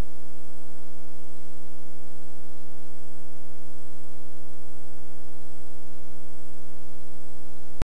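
Steady electrical mains hum with a buzz in the audio line of a videotape transfer, during the blank no-signal stretch after the recording ends. It cuts off abruptly near the end.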